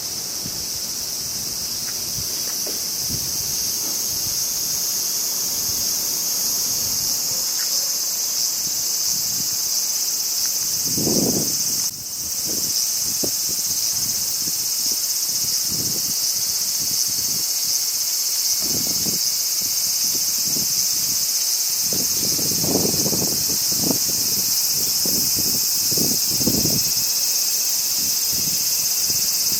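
Crickets chirring in a continuous, high, finely pulsing trill. Low gusts of wind buffet the microphone several times, most heavily in the last third.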